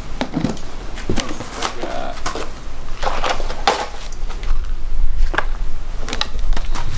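Irregular knocks and scrapes of a clear plastic storage tub being handled: its lid lifted off and a metal snake hook knocking against the tub, about nine strokes in all, over a low rumble that grows from about halfway.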